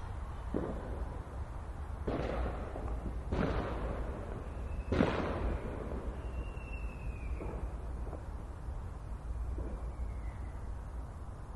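Fireworks exploding in a string of bangs, each trailing off in a rumbling echo. The loudest comes about five seconds in and later ones are fainter, all over a steady low rumble. A high thin whistle glides downward after the loudest bang.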